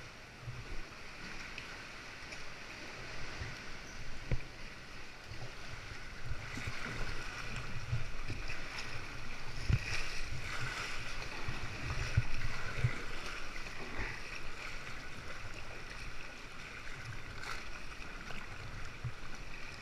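Choppy sea water splashing and sloshing around a kayak, with irregular low knocks. The water is rough close in under the cliffs.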